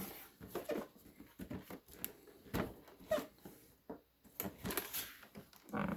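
Cardboard toy box and plastic packaging being handled: irregular light rustles and taps.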